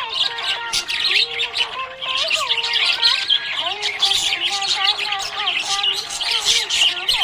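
Budgerigars chirping and warbling without a break: a dense chatter of quick high chirps over slower gliding lower notes.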